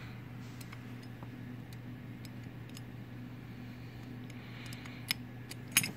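Light clicks and small knocks of scooter variator parts being handled and turned in the hand, over a steady low hum; two sharper clicks near the end.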